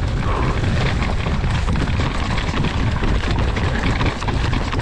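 Downhill mountain bike riding fast over a rough, muddy dirt trail: tyres on dirt, with the bike clattering in quick rapid knocks over the bumps. A heavy rumble of wind on the camera microphone runs under it.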